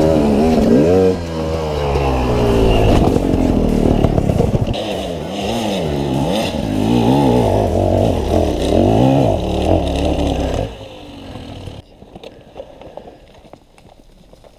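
KTM dirt bike engine revving up and down hard on a steep hill climb, then cutting off abruptly about ten seconds in, followed by quieter scraping and clattering.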